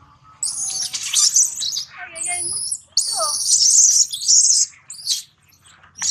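Baby macaque screaming in distress: shrill, high-pitched shrieks in several long bursts, broken by short gaps, as an adult macaque handles it roughly.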